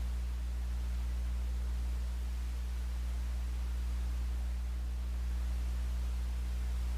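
A steady low electric-sounding hum with several overtones, holding one pitch and level throughout.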